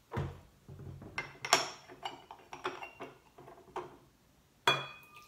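A stainless electric kettle set down on a wooden table with a low thud, then light clinks of a porcelain gaiwan's lid against its bowl as the lid is fitted and the gaiwan lifted for a quick rinse of the tea leaves. A sharper ringing clink of porcelain comes near the end.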